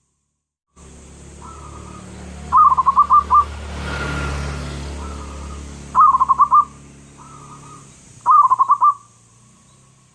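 Zebra dove (perkutut) cooing: three loud bursts of rapid staccato coos a few seconds apart, with softer single notes between them. A low steady hum runs underneath.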